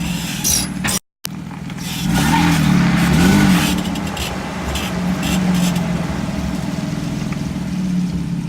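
A 2011 Toyota Tacoma pickup running, with a steady low hum whose pitch rises and falls between about two and three and a half seconds in. The sound drops out completely for a moment about a second in. The truck has a noise its owner cannot identify.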